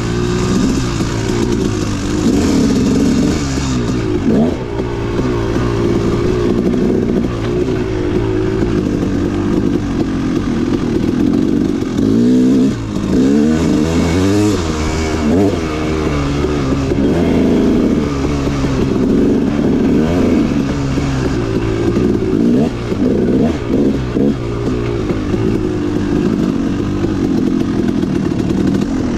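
Dirt bike engine being ridden with constant throttle changes, its pitch rising and falling again and again.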